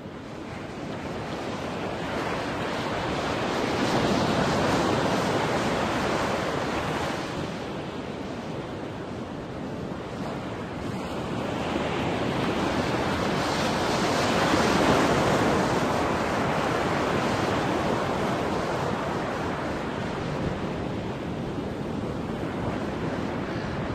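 Ocean surf: a steady wash of waves that fades in over the first few seconds, then swells and ebbs slowly, twice rising to a peak.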